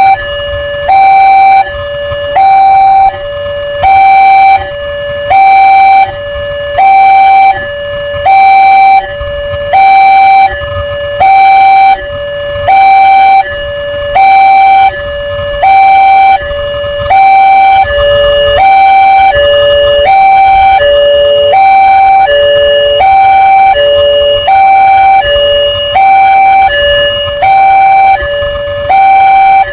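Level-crossing warning alarm sounding continuously, an electronic two-tone signal alternating high and low at about one cycle every second and a half, warning that a train is approaching. For a few seconds in the middle a lower third tone joins the low note.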